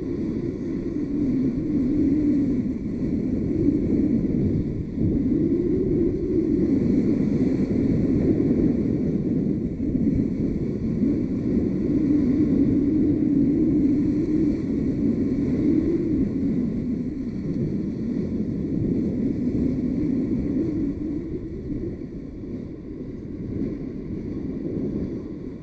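Wind buffeting the camera microphone over the wash of surf breaking on a sandy beach: a steady low noise that swells and eases, a little quieter near the end.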